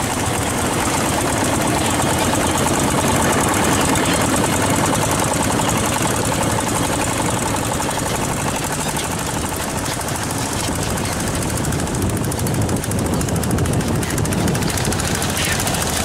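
Longtail boat's engine running steadily at speed with a rapid, even knocking beat.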